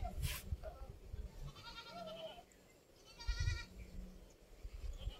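Goats bleating twice, a fainter call about one and a half seconds in and a louder one a little past three seconds.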